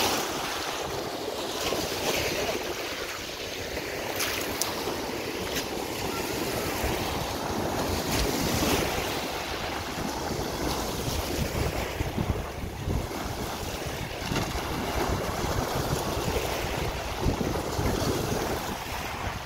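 Small waves breaking and washing up over the water's edge, a steady churn of surf with occasional sharp splashes. Wind buffets the microphone underneath.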